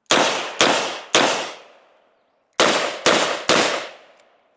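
Six revolver shots in two quick strings of three, about half a second apart, each with an echoing tail that fades over about a second.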